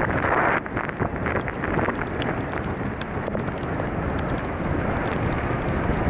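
Wind buffeting the camera microphone in a steady noisy rush, strongest in the first half-second, with scattered small ticks throughout.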